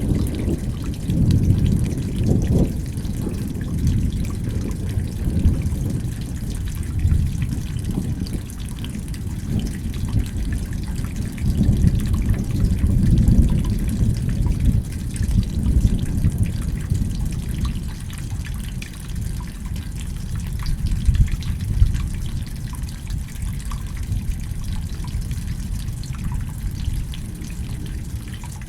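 Steady rain falling, with drips and spatters, under a low rumble that swells and fades like rolling thunder. The rumble is strongest near the start and again about midway, and eases toward the end.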